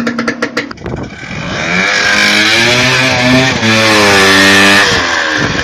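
Two-stroke snowmobile engine on a go-kart, revved up from a choppy idle, held at higher revs for a couple of seconds, then dropping back near the end.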